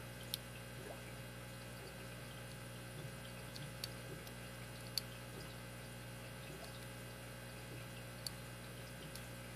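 Faint, sharp metallic clicks of a lock pick setting and touching the pin stack inside a Master Lock 160 brass padlock during single-pin picking, four or so ticks spaced a few seconds apart. A steady low hum runs underneath.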